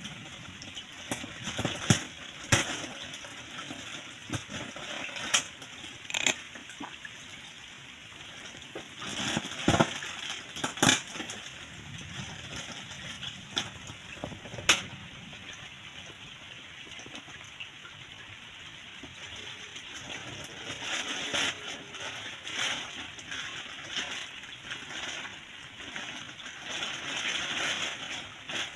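Pond water sloshing and splashing around a plastic bag of koi fry held in it, with the thin plastic crinkling, as the bag is floated and then opened to release the fry. Scattered sharp clicks and splashes, growing busier and louder over the last several seconds as the bag is worked open.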